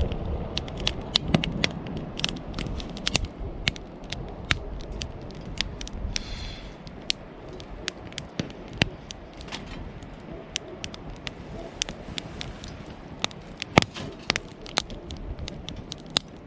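Wood campfire crackling, with irregular sharp pops and snaps over a low rush of burning, busiest in the first couple of seconds.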